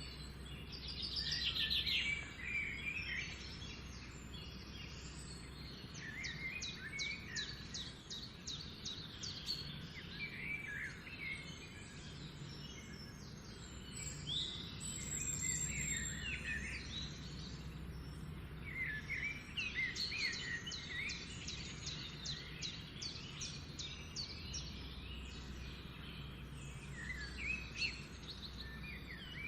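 Several birds chirping and singing at once, with repeated rapid trills, over a steady low background hum.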